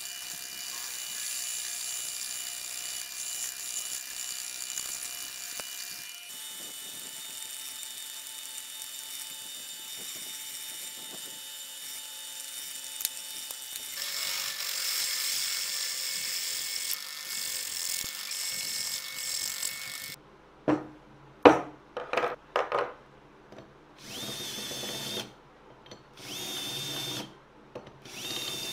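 Twist drill bit boring into a steel plate clamped in a vise: a steady grinding whine with high squealing tones. After about 20 seconds it gives way to a sharp knock and short bursts of a small handheld power tool starting and stopping.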